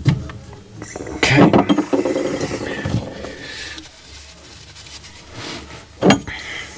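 Clinks and short knocks of a copper tee fitting being pushed onto copper pipe, with a stretch of handling and rubbing noise from about one to three seconds in, then a single sharp knock near the end.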